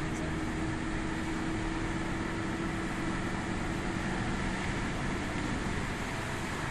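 Steady road and engine noise heard inside a moving car's cabin, with a low hum that fades about halfway through.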